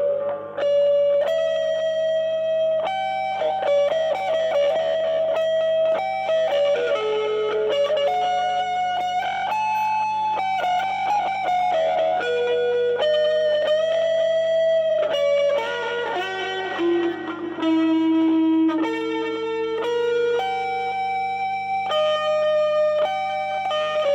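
Stratocaster-style electric guitar playing a slow lead line of single notes, each held and ringing for up to a second or so before moving to the next, over a steady low hum.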